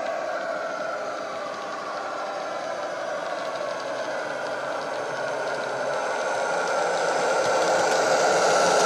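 Heljan/EFE OO gauge Class 58 model locomotive running with a freight train, its ESU LokSound 5 decoder playing Howes' Class 58 diesel engine sound through a small ESU passive-radiator speaker, along with the model's wheels on the track. The steady engine sound grows louder over the last few seconds as the locomotive approaches.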